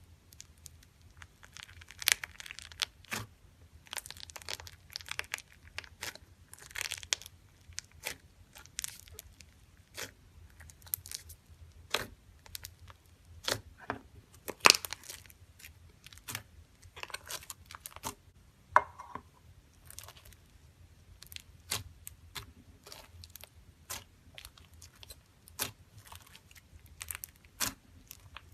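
A packed mass of small foam beads squeezed and poked by fingers and pulled apart: irregular crisp crackling and popping, with a few louder snaps around the middle.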